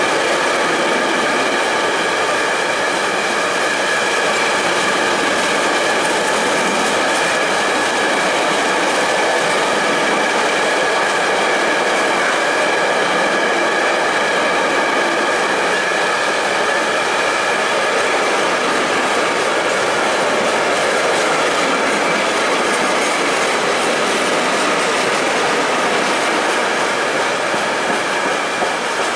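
A freight train of empty container flat wagons rolling past on the rails: a loud, steady rumble and rattle of wheels and wagons, with a steady high-pitched ringing running through it.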